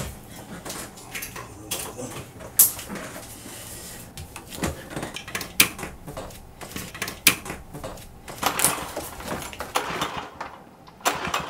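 Irregular knocks, clicks and clatter of household objects being handled and moved about in a small room, like rummaging through things.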